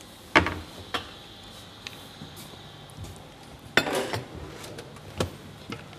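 Metal pots and utensils being handled at a stove: a few separate sharp clinks and knocks, the loudest about half a second in and a cluster of them around four seconds in.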